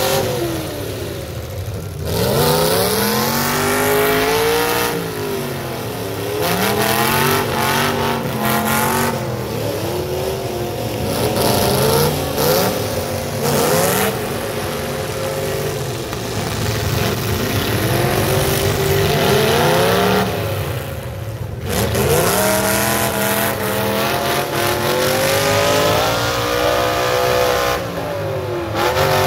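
Engines of full-size demolition-derby pickup trucks revving hard and dropping back again and again. The pitch climbs and falls every couple of seconds, with several engines overlapping.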